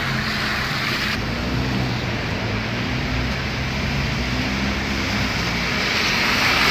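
Traffic on a rain-flooded street: a steady hiss of rain and tyres through standing water over a low engine hum. Near the end the hiss swells as an oncoming car passes close.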